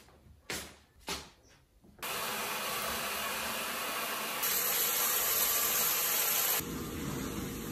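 Shower water running, a steady hiss that comes in about two seconds in, grows louder and brighter for a couple of seconds, then drops back a little. Two soft knocks come before it.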